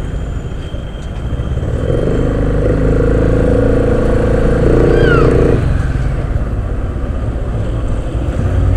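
Motorcycle riding noise picked up by a helmet-mounted lapel mic: a constant low rumble of wind and engine. An engine tone swells about two seconds in and drops away about halfway through, with a brief falling chirp just before it ends.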